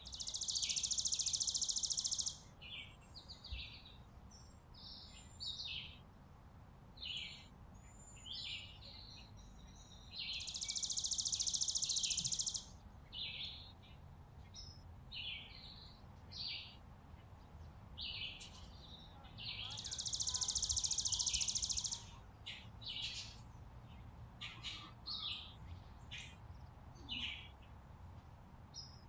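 Small songbirds at a seed feeder chirping with short, scattered high calls. Three times, about ten seconds apart, a loud rapid high trill lasts about two seconds.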